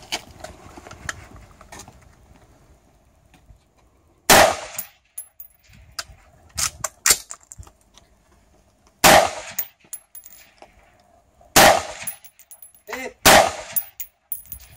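An AR-style rifle fired four times, single aimed shots a few seconds apart, the first about four seconds in. Before the first shot there is light clatter as the shooter settles into position.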